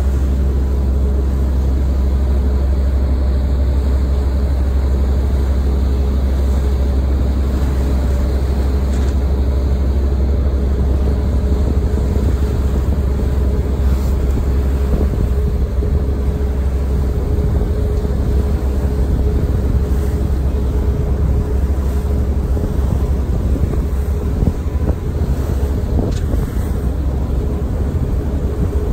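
Staten Island Ferry under way: a steady low engine drone with a few constant hum tones, and wind buffeting the microphone, gustier in the second half.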